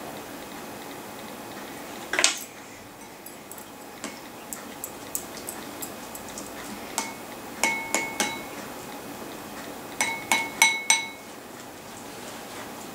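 A spoon clinking against a ceramic bowl, giving short ringing clinks: a few scattered taps, then quick groups of three or four around eight seconds in and again around ten to eleven seconds. There is a single louder knock about two seconds in.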